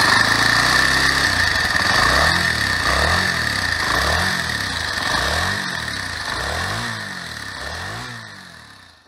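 Motorcycle engine running, then revved in repeated quick rises and falls, about one a little under every second, fading out near the end.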